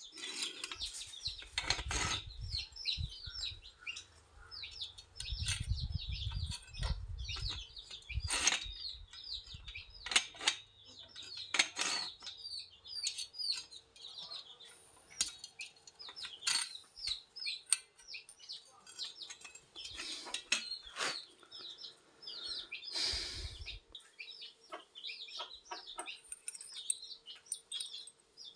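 Small birds chirping rapidly and continuously, with scattered sharp clicks and knocks as a metal pipe barrel and a copper cartridge are handled.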